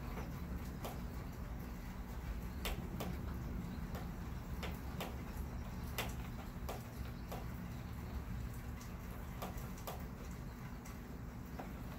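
Scattered raindrops ticking irregularly near the microphone, one or two a second, over a steady low rumble of wind as a thunderstorm moves in.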